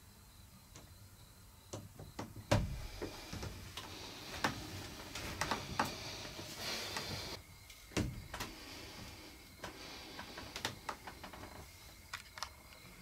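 Quiet handling noise from a hand-held camera: scattered small clicks and soft knocks, with two heavier bumps about two and a half and eight seconds in.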